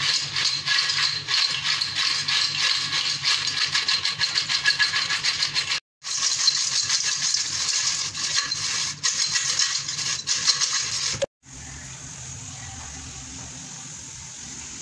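Crisp fried cassava chips rattling and clattering against a stainless steel bowl as the bowl is shaken to toss them in salt and chilli powder, a dense, fast rattle. About 11 seconds in it cuts off and gives way to a steady low hiss.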